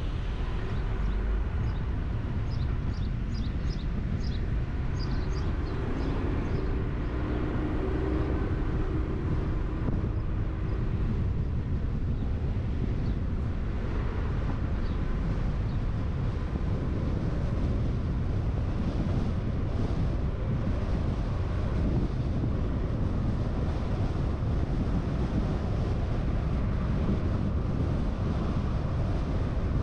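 Steady low rumble of road and wind noise from a car driving at an even speed, with wind buffeting the camera's microphone. A few faint high chirps sound about two to five seconds in.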